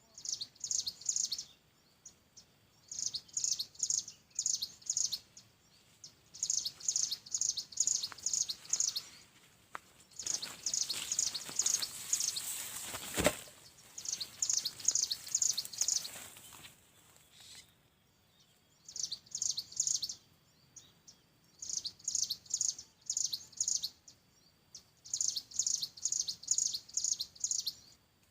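Ciblek gunung song: repeated phrases of quick, high chirps, five to eight notes each, broken by short pauses. About ten seconds in, a few seconds of rustling rise under the song and end in a sharp knock.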